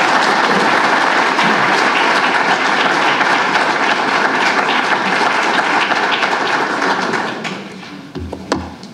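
Audience applauding steadily, then dying away about seven and a half seconds in.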